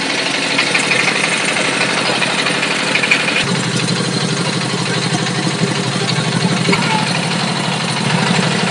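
Small single-cylinder stationary engine running steadily, driving a dough extruder for rope pitha. The sound shifts abruptly about three and a half seconds in.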